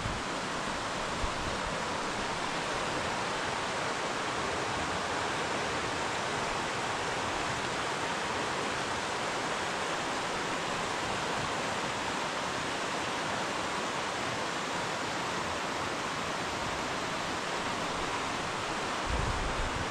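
River water rushing over rocks: a steady, even rush with no breaks, with a few low bumps near the end.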